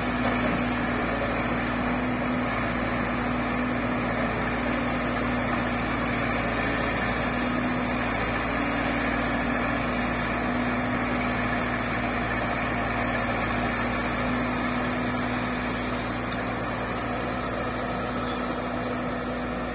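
Diesel engines of hydraulic excavators running steadily under work, the nearest a JCB excavator mounted on a pontoon barge, with an even, unchanging engine hum.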